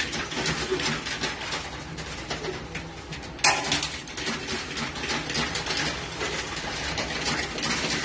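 Coins clinking and rattling in a coin pusher arcade machine as coins are fed in through the slot and drop onto the pusher shelves: a rapid, continuous run of small metallic clicks that gets louder about three and a half seconds in, over a steady low hum.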